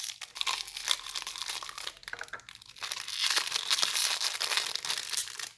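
Aluminium foil packing crinkling as it is pulled and unfolded out of a plastic bottle by hand, a crackle of many small clicks that grows louder and denser about halfway through.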